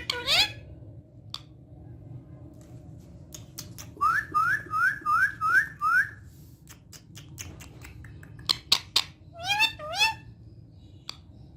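Pet parrot calling: a run of five short rising whistled chirps, with further rising calls near the start and about ten seconds in, and scattered sharp clicks in between.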